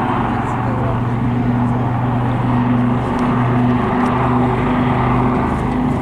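Aircraft of a formation flypast, running steadily: a continuous engine drone with a low hum whose pitch shifts slightly about three seconds in.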